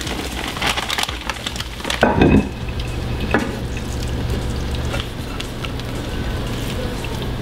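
Food sizzling in a cast-iron skillet, with frozen mixed vegetables pattering in and utensils clicking and scraping in the first few seconds, over a steady low hum.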